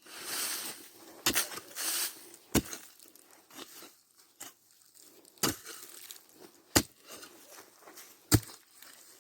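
Sharp chopping strikes, about one every second and a half, with scraping and rustling between them: a digging tool chopping into hard ground at an armadillo burrow.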